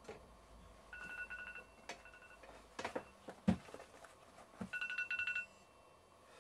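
A telephone ringing faintly with a rapid electronic trill, in two bursts a few seconds apart, with a few light knocks in between.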